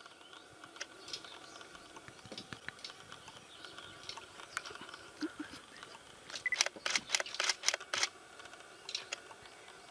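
Camera shutters clicking in quick bursts, thickest between about six and eight seconds in, over a faint steady background hum.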